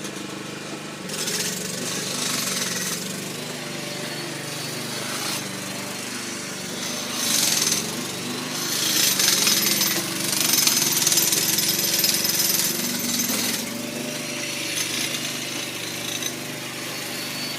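Pneumatic breaker (jackhammer) from track renewal work, hammering in stretches, loudest about seven seconds in and again from about nine to thirteen seconds in.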